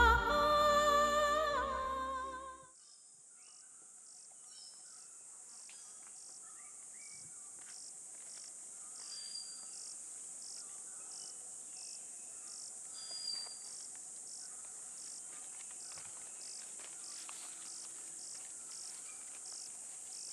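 A sung melody ends about three seconds in. After it comes a steady, faint chorus of crickets, high-pitched with evenly repeating chirps.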